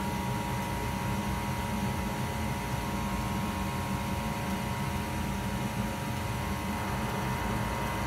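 A 2003 Goodman 80% gas furnace firing with its burners lit: the draft inducer motor runs with a steady hum and a faint high whine, over the rush of the gas flames. The circulating blower has not yet come on.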